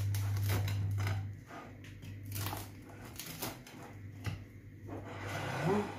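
A knife cutting through a crisp-crusted harcha, the Moroccan semolina flatbread, on a plate: a string of short crackles and clicks as the blade breaks the crust and meets the plate. A steady low hum stops about a second in.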